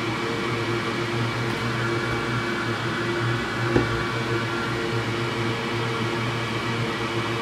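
Steady hum and hiss of a running machine, with one light click about halfway through.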